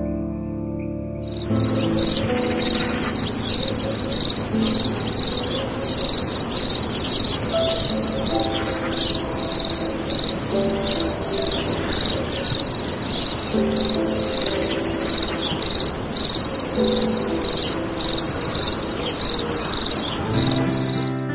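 Insect chirping, high-pitched and evenly repeated about twice a second, starting about a second in, with soft background music underneath.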